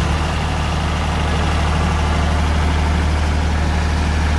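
Air-cooled three-cylinder Deutz diesel engine of a 30 kVA generator set running steadily at idle, just after being started. A constant low, even hum.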